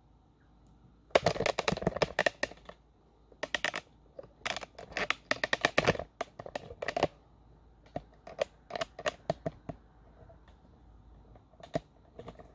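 Handling noise: several bursts of quick clicks and rattles with short pauses between them, as computer gear and cables are moved about on a desk.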